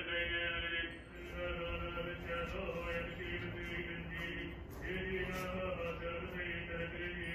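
Buddhist monks chanting a sutra together in long, drawn-out notes, with brief pauses for breath.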